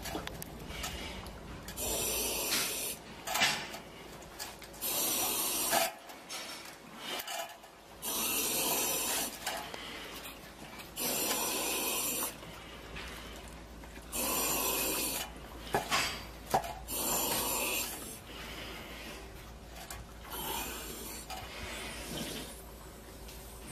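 Heavy rhythmic breathing with a loud hiss on each breath, about one breath every three seconds, each lasting about a second; the breaths grow fainter near the end.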